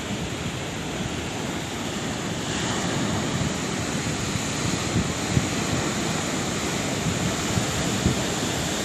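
Sea waves rushing and washing on a shore: a steady surf, swelling a little about two and a half seconds in.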